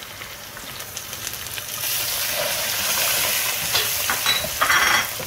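Fresh coriander, mint and green chillies sizzling as they hit hot oil with fried onions and whole spices, the tempering for bagara rice; the sizzle grows louder about two seconds in. A wooden spatula scrapes and stirs through the pan near the end.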